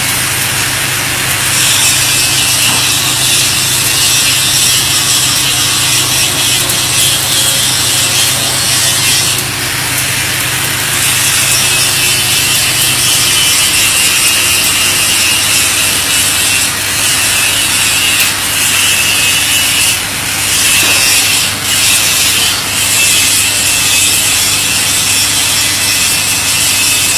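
Electric arc welding on a pipe branch connection: a steady crackling sizzle of the arc, with a few brief breaks in the middle. A steady low hum runs beneath it.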